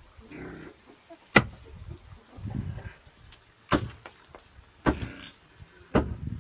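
Four sharp knocks, unevenly spaced, from a rock pounding the top of a forked wooden stake to drive it into the soil, with soft scraping of earth between the blows.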